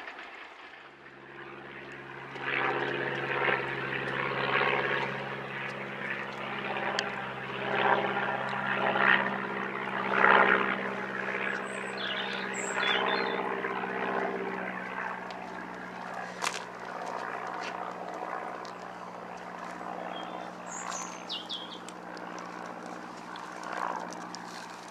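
Light propeller aircraft flying over, its piston engine and propeller giving a steady drone with an even stack of tones that starts about a second in and holds to the end. Bursts of rushing noise come and go over the first half, loudest around 8 to 10 seconds, and a bird chirps a few times.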